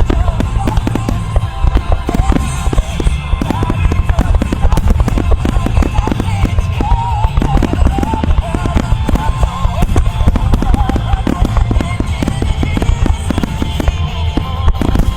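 A dense, unbroken barrage of aerial firework shells bursting many times a second, with music playing along with the display.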